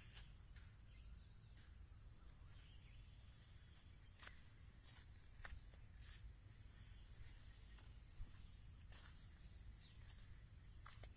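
Faint, steady, high-pitched insect chorus, with a low rumble and a few soft clicks.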